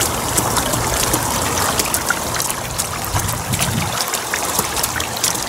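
Running water trickling and splashing steadily, with many small drips and splashes.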